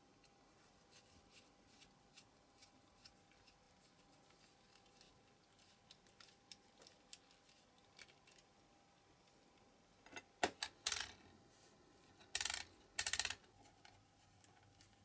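Precision screwdriver faintly ticking as it turns a small screw in the metal base of a diecast toy car. Later come a few louder bursts of clattering from small parts and tools being handled.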